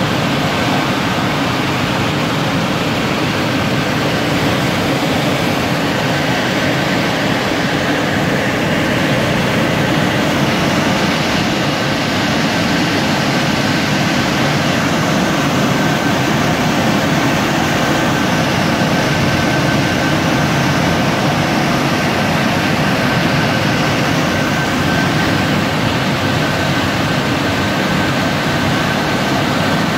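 Touchless car wash dryer blowers running steadily at full power: a loud, even rush of air with a faint steady whine.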